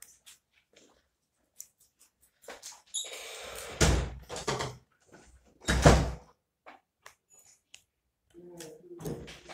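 Close handling noise against the recording phone or table: a stretch of rustling and scraping, then two heavy thumps about two seconds apart, the second the loudest.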